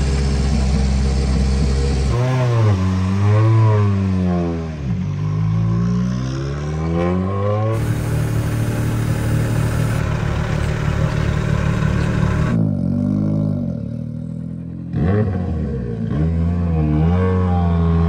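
Hyundai i20 N Rally1 car's turbocharged 1.6-litre four-cylinder engine idling, with two spells of quick throttle blips where the revs rise and fall sharply.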